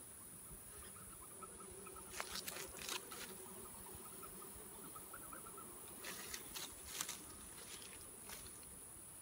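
Bee smoker's bellows puffing smoke in two short runs of several quick puffs, about two seconds in and again about six seconds in. Under it is the faint hum of honeybees at the nuc box and a steady high insect whine.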